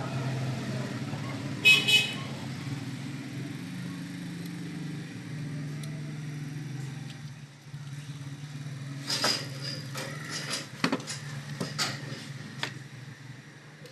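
Steady low traffic hum from a street, with a short vehicle horn toot about two seconds in. Later comes a run of sharp clicks and knocks.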